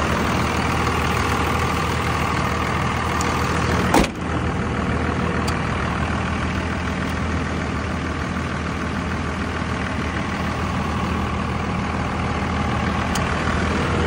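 A 2001 Dodge Ram's 24-valve Cummins turbo diesel idling steadily, with a single sharp knock about four seconds in.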